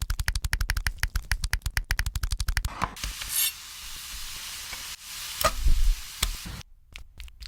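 Rapid, even tapping at about ten strokes a second, then food sizzling and frying in a hot pan from about three seconds in, with a louder clatter shortly before the sound cuts off abruptly near the end.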